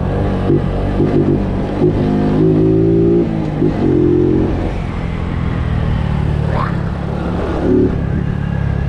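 Honda Biz's small single-cylinder engine running under way, its note holding steady in stretches and shifting in pitch between them, over a steady rush of noise.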